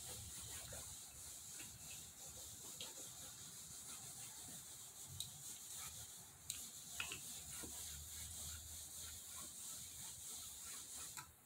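Travel iron's soleplate sliding back and forth over linen fabric: a steady rubbing hiss, with a few light knocks about halfway through, stopping at the very end.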